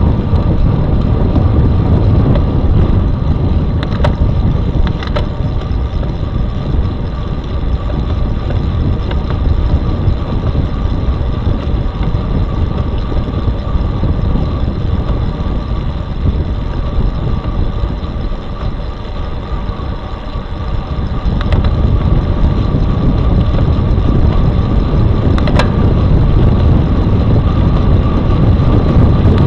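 Wind rushing over the microphone of a bike-mounted camera while riding on the road, a loud steady rumble that eases briefly about two-thirds of the way through. A steady faint whine runs beneath it, with a few light clicks.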